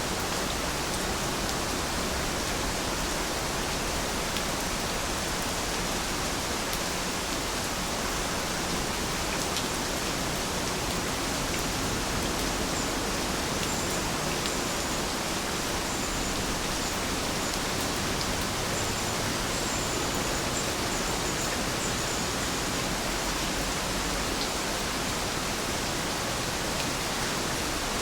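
Steady rainfall: an even, unbroken hiss of rain, with no change in strength.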